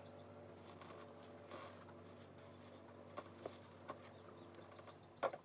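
Faint steady hum of room tone, broken by a few light taps and clicks as small objects are handled and set down on a desk.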